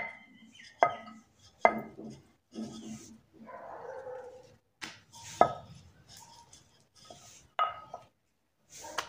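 Wooden rolling pin knocking against a hard board while a papad is rolled out: three sharp knocks about a second apart, then two more later. Near the middle, a softer rustling stretch as the thin rolled dough is peeled up off the board.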